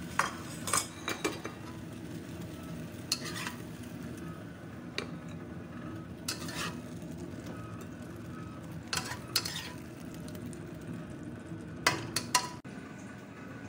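A spatula stirring a stir fry in a pan on a gas hob with the heat just switched off, making intermittent scrapes and clinks against the pan over a faint sizzle.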